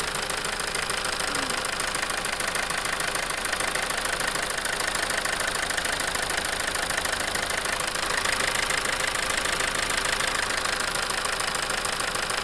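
Toyota 2.2 diesel engine idling with a fast, steady clatter. It is running rough on a faulty injector.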